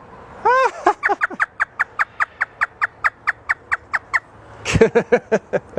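Parrot imitating a hysterical human laugh: one drawn-out opening note, then a fast run of short ha-ha notes at about six a second, ending with a few louder cackles.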